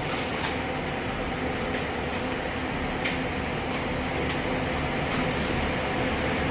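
Idling coach buses: a steady drone with a constant low hum.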